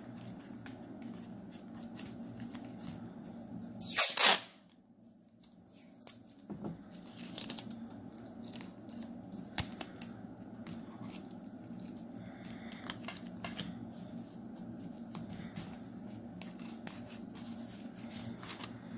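Masking tape ripped off the roll in one short, loud tear about four seconds in, then the crackle of paper and masking tape as it is pressed and smoothed around a crumpled paper ball, with many small crinkling ticks.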